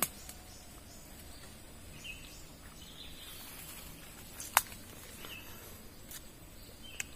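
Quiet forest ambience: faint insect hum with a few short bird chirps, and a single sharp click about four and a half seconds in.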